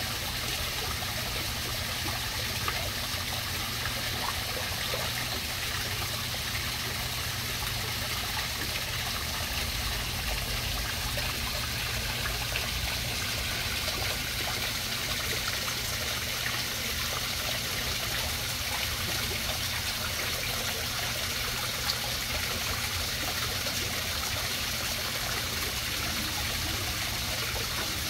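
A koi pond's waterfall splashing and trickling steadily into the pond.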